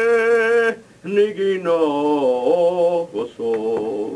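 A man chanting Hebrew liturgy solo, in long held notes with a slight waver in pitch, breaking off briefly about a second in.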